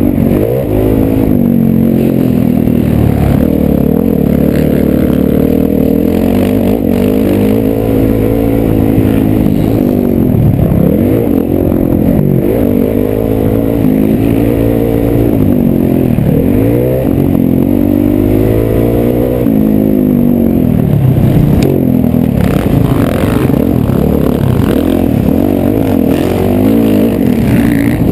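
Motocross dirt bike engine racing around the track, its pitch climbing and dropping again and again as the throttle is opened and chopped through shifts and turns.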